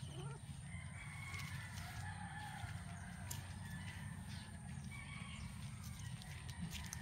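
A rooster crowing faintly, with a drawn-out call about a second in and shorter pitched calls later, over a steady low background rumble.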